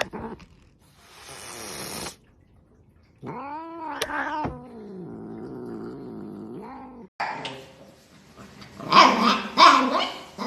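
A cat vocalising: a hiss, then a drawn-out yowl that rises and falls, running into a wavering low growl. Loud, short, repeated animal cries come near the end.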